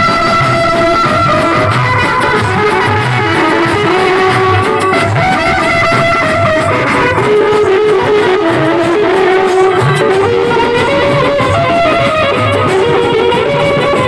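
Indian wedding band music played loud: a melody line over a steady, regular drum beat.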